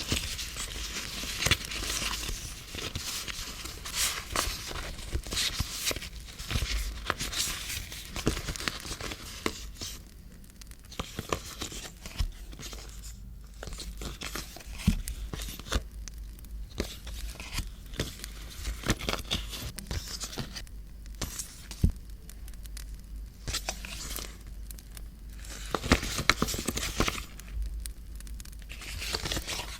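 Paper and packaging handled close to the microphone: crinkling and rustling with bits of tearing and many small sharp clicks and taps, in uneven bursts with brief lulls.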